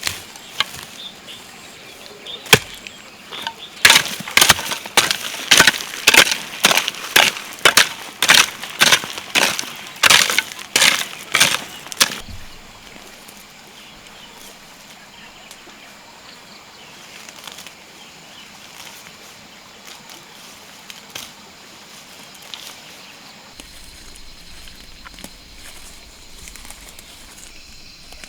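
A run of sharp, rhythmic strikes, about two a second, that stops after some ten seconds, leaving only faint outdoor background.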